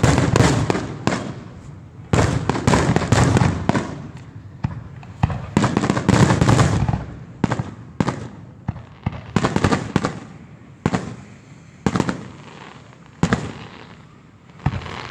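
Fireworks going off: clusters of rapid bangs and crackling lasting a second or so each, with single sharp bangs between them, the last few spaced about a second apart.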